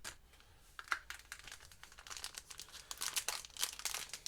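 Crinkly packaging of a set of guitar strings being handled and opened: a run of sharp crackles and rustles that starts faint and grows busier from about halfway through.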